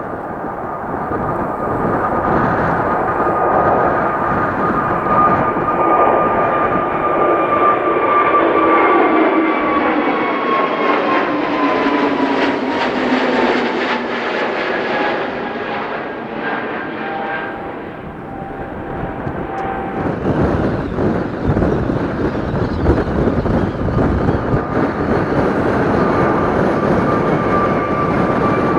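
Airliner engines running loud as an aircraft passes, their whine sliding down in pitch through the middle. From about 20 s a louder, uneven rumble builds under a steady whine.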